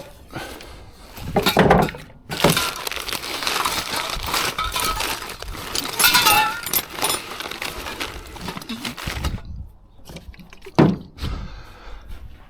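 Hard objects clattering and clinking against one another, many quick knocks through the middle and one sharp knock near the end.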